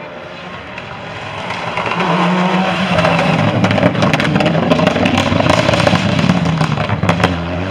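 Group A Toyota rally car driven hard past close by: its engine note builds and rises, then drops and climbs again through gear changes, loudest as the car passes. Through the middle comes a rapid run of sharp cracks and pops.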